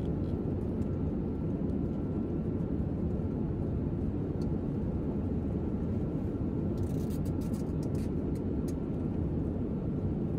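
Steady airliner cabin noise: a constant low rumble of engines and airflow with a faint steady whine above it. A few light clicks come between about seven and nine seconds in.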